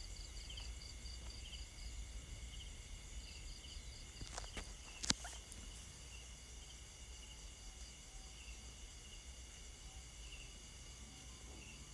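Faint rural outdoor ambience: a steady chorus of insects such as crickets, with a high, evenly repeated chirping and short scattered chirps throughout. A sharp click stands out about five seconds in.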